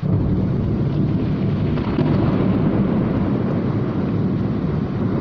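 Heavy rainstorm: a loud low rumble sets in suddenly at the start and holds steady over the hiss of the rain.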